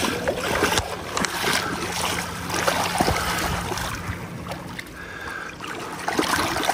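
Shallow river water flowing and lapping, with irregular small splashes.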